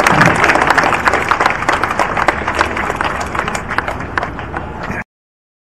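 Crowd applauding, many hands clapping densely and slowly dying down, then cut off abruptly to silence about five seconds in.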